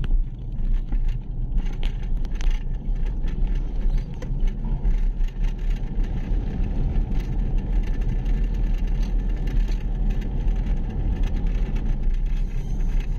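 A motor vehicle's engine and road noise heard from inside the moving vehicle: a steady low rumble, with small knocks and rattles from the ride.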